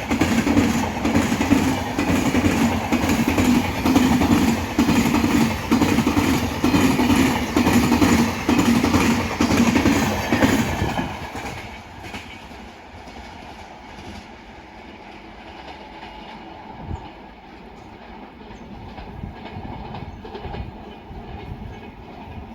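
Passenger train coaches rolling past at speed, wheels clattering rhythmically over the rail joints. About eleven seconds in the sound drops sharply to a fainter rumble as the train moves away.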